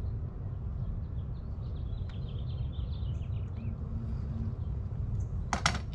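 Outdoor background: a steady low rumble with small birds chirping in short, scattered calls during the first half. Near the end comes a quick cluster of sharp clicks or taps, the loudest sound.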